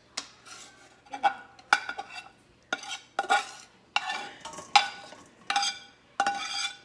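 A slotted metal spatula scraping and knocking against a stainless-steel skillet, about ten short strokes, each leaving the pan ringing briefly, as fried sausage and peppers are pushed out into a metal bowl.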